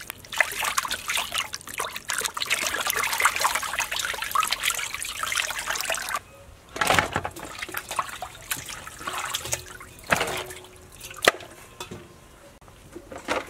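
Water splashing and trickling as whole fish are washed by hand in a basin of water, steady for about six seconds, then a few scattered splashes and knocks.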